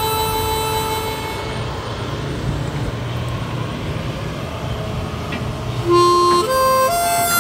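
Harmonica background music: a held note that fades about a second and a half in, a low rumble underneath through the middle, then a short stepwise harmonica melody beginning near the end.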